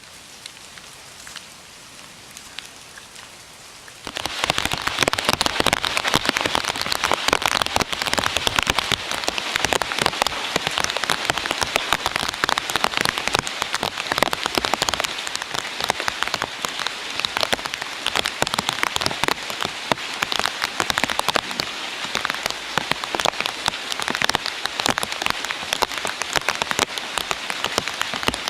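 Rain falling during a storm: moderate at first, then much heavier from about four seconds in, a dense steady spatter of drops on hard surfaces.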